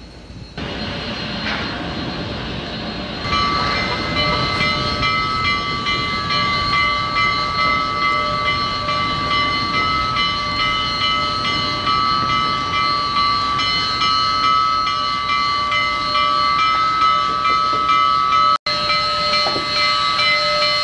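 Union Pacific No. 844, a 4-8-4 steam locomotive, blowing its chime whistle in one long, steady blast of several notes at once, starting a few seconds in. Under it, the rumble of the locomotive rolling past. The sound drops out for an instant near the end.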